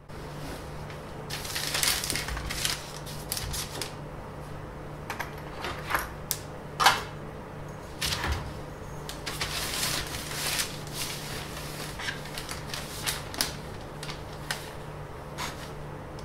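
Drawing tools handled on a paper-covered workbench: a compass and pencil scratching on paper and a long metal ruler knocking and sliding as it is picked up and laid down, in a series of irregular scrapes and taps with the loudest knock about seven seconds in. A steady low hum runs underneath.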